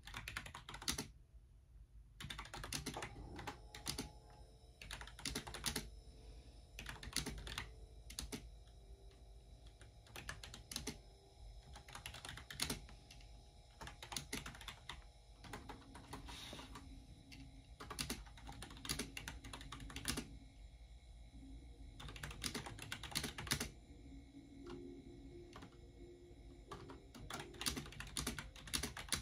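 Typing on a computer keyboard: quick runs of keystrokes in irregular clusters, broken by short pauses.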